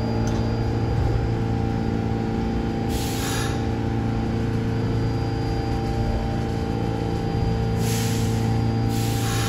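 R46 subway train standing at the platform, its onboard equipment giving a steady hum with several steady tones. Short bursts of air hissing come about three seconds in and again near the end.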